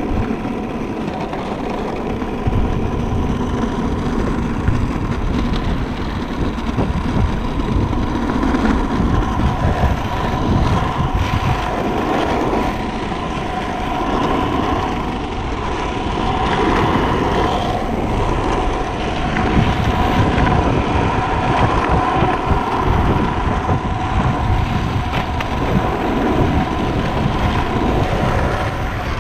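Freebord wheels rolling and carving over asphalt: a steady rumble with a constant hum, swelling and easing as the rider carves, with wind buffeting the microphone.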